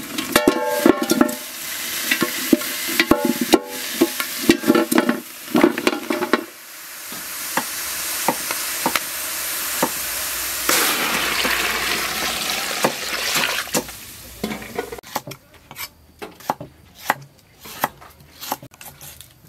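Chunks of cow-leg bone and meat clanking and knocking as they are tipped from a basket into a large aluminium pot. After that comes a steady rushing hiss, and near the end a series of sharp knocks of a cleaver chopping on a wooden board.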